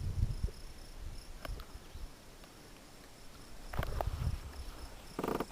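Crickets or other insects chirping steadily, a faint high-pitched trill throughout, with a few soft knocks and low rumbles underneath.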